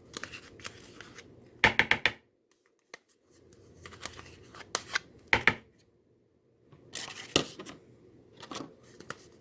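A utensil scraping the last of the yogurt out of yogurt containers, a run of scrapes and clicks in short clusters broken by two brief dead silences.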